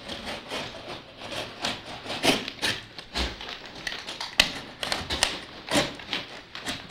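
Irregular sharp knocks and taps of hand tools on plaster and tile, a quick uneven string of strikes, as an old fireplace mantel and tile surround are taken out.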